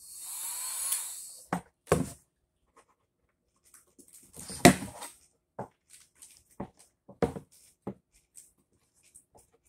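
A handheld heat gun blows with a rushing hiss for about a second, swelling and then fading out. After it come scattered clicks and knocks of vinyl film and tools being handled, the loudest a little before halfway through.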